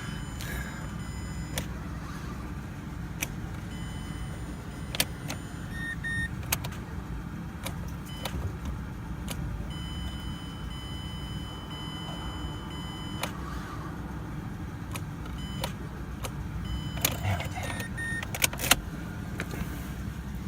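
Steady low rumble of an idling vehicle, with scattered sharp clicks and knocks from handling, bunched together and loudest near the end.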